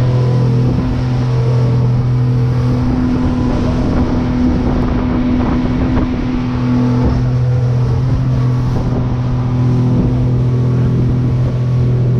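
Motorboat engine running steadily at cruising speed, a constant drone with the rush of water and wind over the hull as the boat speeds along.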